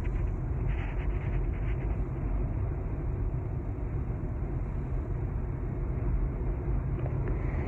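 Steady road noise inside a BMW's cabin at highway speed: a low, even rumble of tyres and engine with some wind noise, unchanging throughout.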